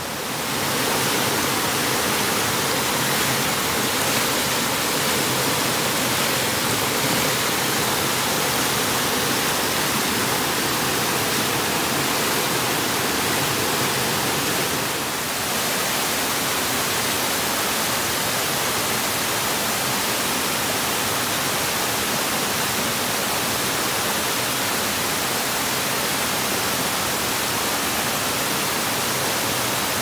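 Steady rush of falling water from a mountain stream's cascades and waterfalls, with a brief dip in level about halfway through.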